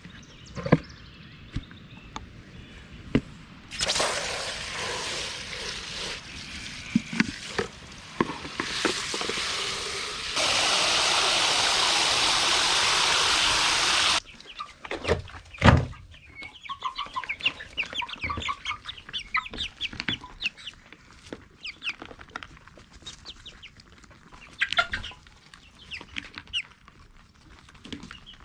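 Chickens clucking, with many short calls through the second half. Earlier a loud steady rushing noise runs for several seconds, with a few knocks before it.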